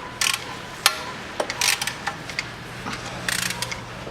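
Ratchet wrench with a 14 mm socket clicking in three short bursts as a belt pulley bolt is undone, with a few sharp metal clinks of tools and parts between them.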